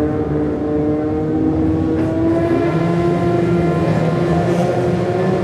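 Several Toyota AE86 race cars' engines running together on the starting grid, held at fairly steady revs before the race start, with a few of them rising and dipping in pitch.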